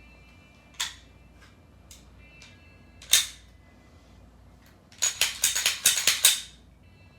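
Sharp metallic clicks of a reassembled Ruger P95 pistol being handled: a single click just under a second in, a louder clack about three seconds in, then a rapid clatter of clicks lasting over a second near the end.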